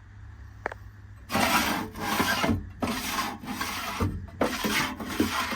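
Small metal bolt drawers of a truck service body being slid in and out on their runners: a run of about six rasping slides, each about half a second, after a faint click.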